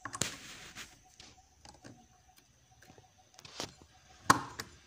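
Circlip pliers fitting a steel circlip onto the hub of a brush cutter clutch bell: light metallic scraping and small clicks, then one sharp click near the end as the clip snaps into its groove.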